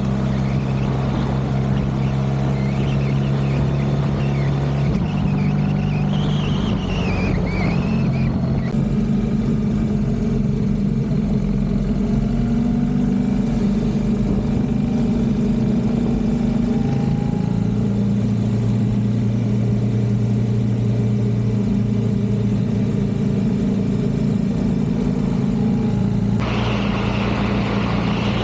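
BMW R1300GS Adventure's boxer-twin engine running steadily under way, its pitch stepping up and down a few times. The overall sound changes abruptly about nine seconds in and again near the end.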